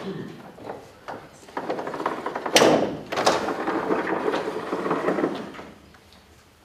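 Vertical sliding chalkboard panels being pushed up in their frame: a rough rumbling scrape lasting about four seconds, with two sharp knocks near the middle.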